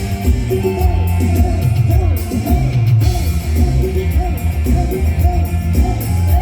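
Live band playing dance music with heavy bass and drums, a melody line bending up and down in pitch above them.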